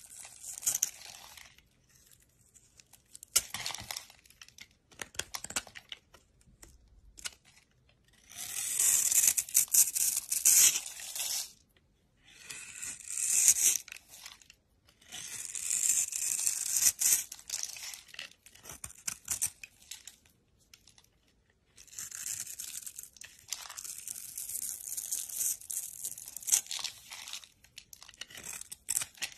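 Snap-off utility knife blade cutting into a bar of soap: crisp scraping and crackling as it slices small cubes and scrapes off crumbly shavings. The cutting comes in passes of one to several seconds with short pauses between.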